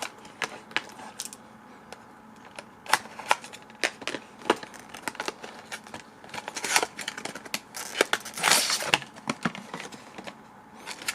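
Tape being picked at and peeled off the ends of a small cardboard trading-card deck box: scattered sharp clicks and scratches of fingers on card, with two longer rasping peels about two-thirds of the way through.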